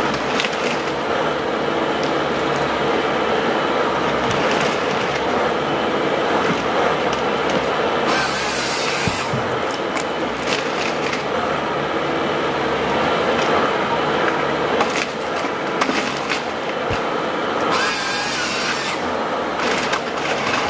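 Vimek 404 T8 compact harvester working, its 55 kW CAT diesel engine and hydraulics running steadily. Two short, harsher bursts come about eight and eighteen seconds in, typical of the harvester head sawing through a stem.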